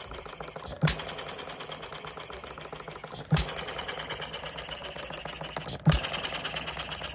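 Alyn Foundry RLE model stationary engine running under its governor: it fires with a sharp bang about every two and a half seconds, three times, and coasts between firings with a fast, even clicking from its mechanism, the ignition points being a bit noisy.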